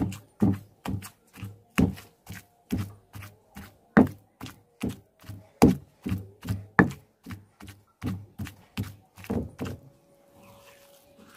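Wooden pestle pounding raw chicken meat in a mortar, a steady run of thuds about two to three a second, grinding the meat into mince. The pounding stops about ten seconds in.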